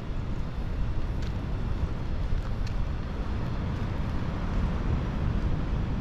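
Outdoor wind noise: gusts rumbling on the microphone over a steady hiss, with a couple of faint ticks.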